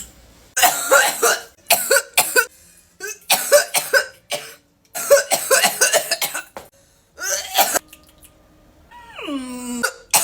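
A person coughing hard after a heavy vape hit, in repeated harsh bursts with short pauses between them. Near the end comes a long vocal sound that slides down in pitch.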